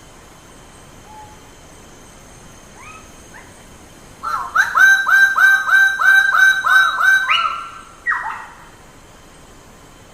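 Bird-of-paradise calling: a few faint notes, then a loud, rapid series of short repeated notes, about three a second for some three seconds, ending with one longer note, over a steady background hiss.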